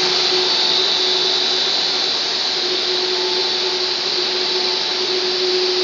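WPC profile extrusion line running: a steady mechanical hiss with a constant hum and a high, even tone.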